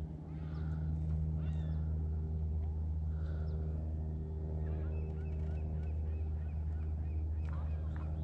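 Small boat's motor running with a steady low hum, with birds calling over it in short chirps.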